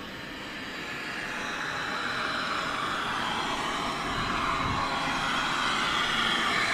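Handheld gas brazing torch hissing steadily while copper refrigerant pipes of an air conditioner are brazed, growing louder over the first few seconds.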